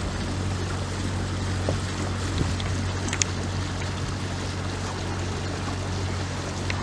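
A boat's engine running steadily with a low hum, with the rush of water and wind over it.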